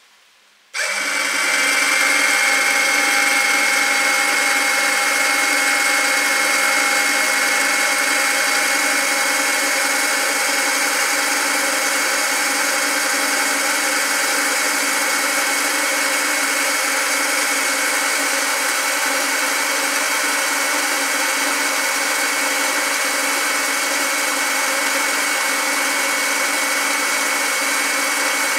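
Small electric pump switching on about a second in, then running steadily with a hum and a high whine, drawing diesel through clear hoses to bleed air out of the fuel line after a fuel filter change.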